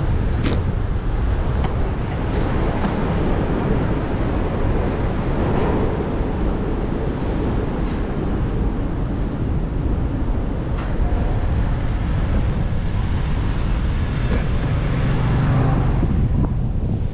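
Steady city traffic and road noise heard from a moving bicycle, a dense low rush with no let-up. A sharp click comes about half a second in, and another about two-thirds of the way through.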